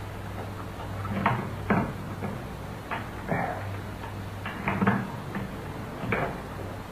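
A locked wooden door being tried: the handle is turned and the door rattles and knocks against its lock in about seven short jolts, over a steady low hum.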